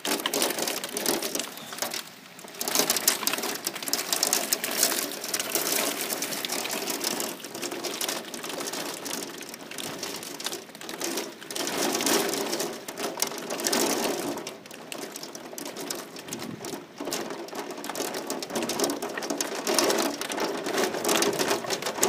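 Hail pelting the house: a dense, rapid clatter of small ice pellets that swells and eases in waves.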